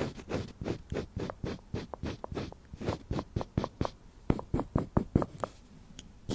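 Eyeliner strokes scratching close to the microphone in short repeated passes, about three a second, coming quicker and sharper for a second or so near the end.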